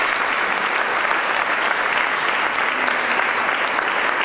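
Audience applauding steadily, a dense even clapping that began just after the speaker's closing thanks.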